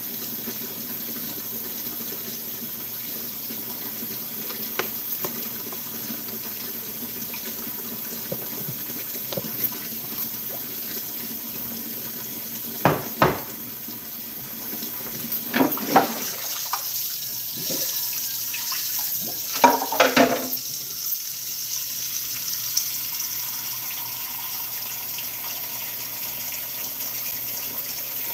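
Steady rush of water running from a kitchen tap, with a few sharp knocks and clatters about halfway through.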